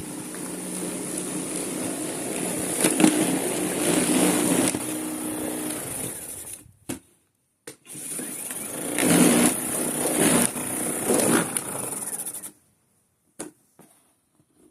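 Worx cordless battery snow thrower running, with a steady motor hum and a high whine under the rush of snow being thrown. It grows louder in surges, cuts out for about a second partway through, starts again, then stops about two seconds before the end.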